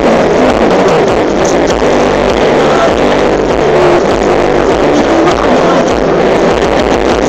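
Loud caporales dance music playing without a break for the dancers.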